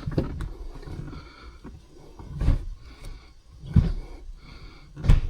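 Three dull clunks about a second and a half apart, from a manual gear shifter fitted with a new extension being moved between gears.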